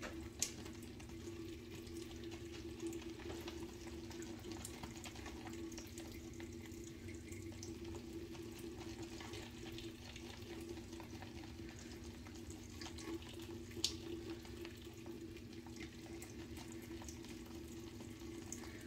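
Shaving brush whisking thick shave-soap lather around a lather bowl: a faint, steady wet swishing, with a couple of light knocks of the brush on the bowl, as the freshly added water is worked into the lather. A steady low hum runs underneath.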